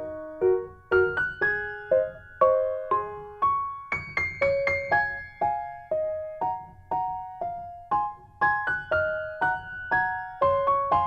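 Background music: a gentle piano melody of struck notes, about two or three a second.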